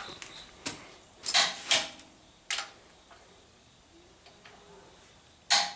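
Click-type torque wrench tightening bolts into freshly repaired threads in a tractor's frame: a few sharp metallic clicks about a second apart, then a long pause before one more near the end, as the wrench breaks at its set torque and is ratcheted back.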